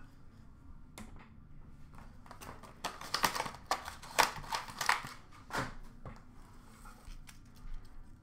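Hands handling trading-card boxes and packaging: a run of quick clicks, taps and rustles, densest about three to five seconds in, with a couple more near six seconds.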